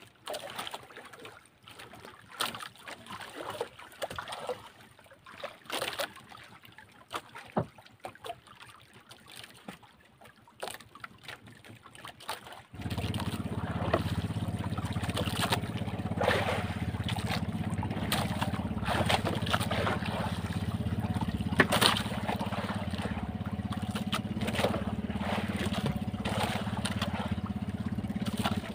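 Water lapping against an outrigger boat's hull with scattered small knocks, then about halfway through the boat's engine comes on and runs with a steady low hum.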